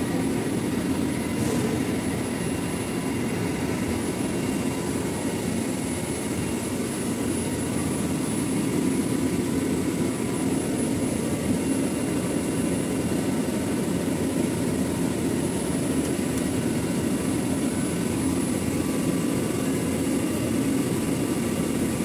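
Control-panel air conditioner running: a steady low drone with a few faint, constant whining tones above it.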